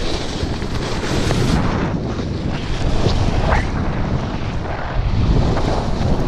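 Wind buffeting an arm-mounted action camera's microphone as a snowboard rides down the slope, a loud rumbling rush that swells and eases, with the board hissing and scraping over the snow.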